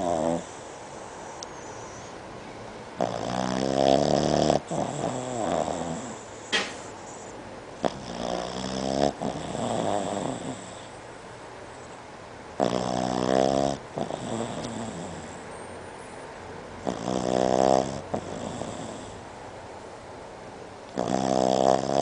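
Boston terrier snoring in its sleep: five loud snores, one about every four to five seconds, each lasting about a second, with quieter breathing between them.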